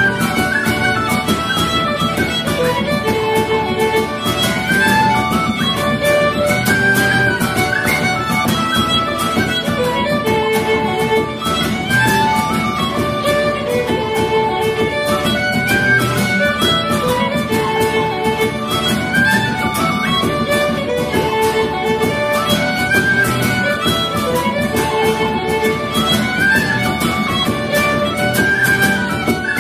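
Instrumental music: a repeating melody over a steady beat.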